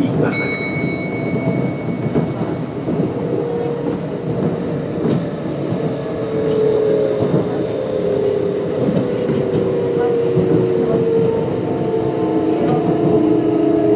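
Kintetsu 1259 series train running on the rails, its Hitachi GTO-VVVF inverter and traction motors whining over the wheel and rail rumble. From about the middle the whine slides steadily down in pitch as the train brakes for a station stop. A brief high ringing tone sounds just after the start.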